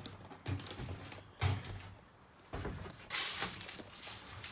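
A few scattered knocks and short rustling noises, like things being handled or moved about.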